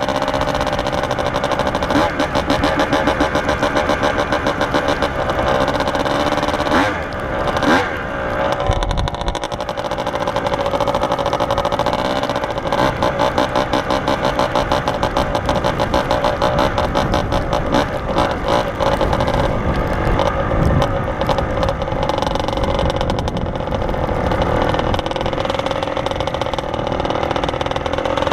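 Kawasaki KDX two-stroke dirt bike engine running while being ridden, its revs rising and falling with the throttle; the revs dip and pick back up about seven seconds in.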